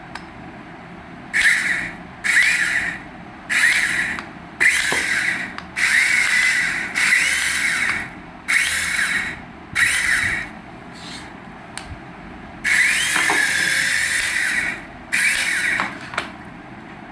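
Small electric toy motor whirring in about nine short bursts, each starting suddenly and dying away, with one longer burst near the end.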